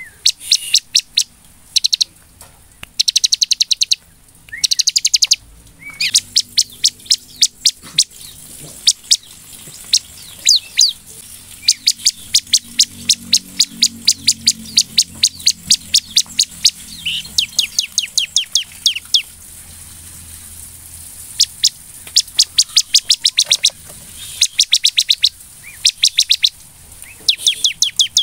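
Bar-winged prinia (ciblek) in full energetic 'gacor' song: long runs of rapid, sharp, high chirps, many a second, with a short break about two-thirds of the way through. This kind of song is played to provoke other ciblek into singing.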